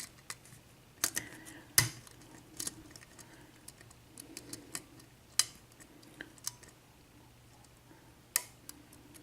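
Metal lock pick working the pins inside a Dorma mortise lock cylinder: scattered light clicks and ticks as the pick probes for pin 4, over a faint steady hum.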